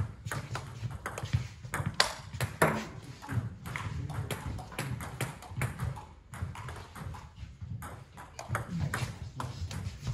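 Table tennis rally: the plastic ball clicking sharply off the bats and the table in quick, irregular succession.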